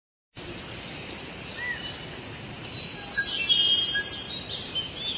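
Rainforest ambience: several birds chirping and whistling over a steady background hiss, starting just after a moment of silence and busiest about three seconds in.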